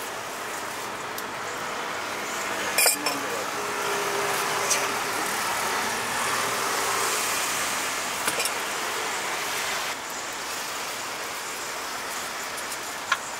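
Steady outdoor street noise with a traffic hum and a few sharp clicks about three seconds in, around eight seconds, and near the end.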